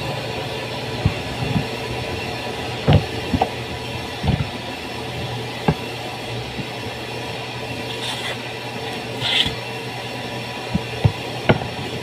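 Pine pallet boards knocking against a wooden worktable as they are handled and set down: scattered knocks, the loudest about three and four seconds in and a cluster near the end, over a steady hum.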